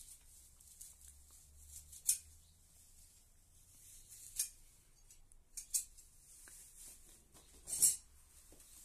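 Fresh grass stems rustling and snapping in about five brief, crisp bursts as the cut grass is handled. The loudest is near the end.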